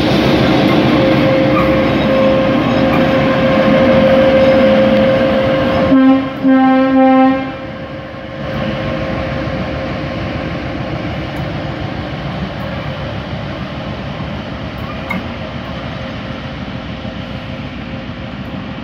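GA8 diesel locomotive 5557 running with its train of ballast hopper cars, a steady engine drone with a held tone. About six seconds in its horn sounds two blasts, the second longer; then the engine and cars carry on more quietly and slowly fade as the train moves away.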